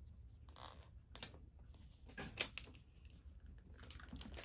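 Crinkling and crackling of a Miniverse toy capsule's wrapping as it is peeled off by hand: scattered sharp crackles, a few about a second in, a loud cluster around the middle, and more near the end.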